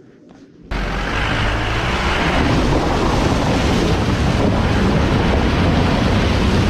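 Water splashing and rushing as a Mahindra Bolero's front wheel ploughs through a shallow stream crossing, over a steady low rumble. It cuts in suddenly, loud, under a second in.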